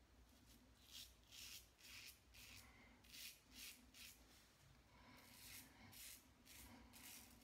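Braveheart stainless steel safety razor with a Gillette Super Platinum blade scraping stubble through shaving cream: a dozen or so short, faint rasping strokes, about two a second, with a brief pause in the middle.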